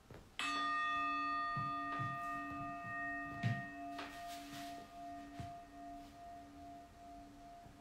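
A singing bowl struck once about half a second in, ringing with several overtones and slowly fading. A few soft thumps of movement sound beneath it.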